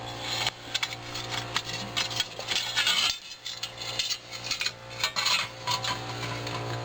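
Light metallic clicks, clinks and rubbing of small metal parts of a model steam locomotive being handled, over a steady low hum.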